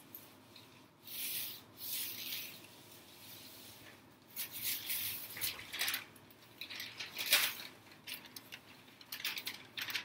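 Irregular swishing and rustling of a clothes iron sliding over greaseproof paper laid on layered plastic bags, heat-fusing the plastic into a sheet.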